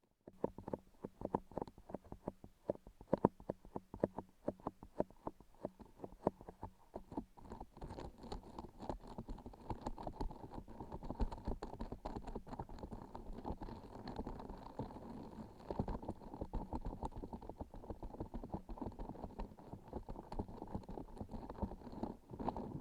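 Close-miked sticky texture being pressed and pulled: quick separate sticky clicks at first, then from about seven seconds in a denser, continuous crackling.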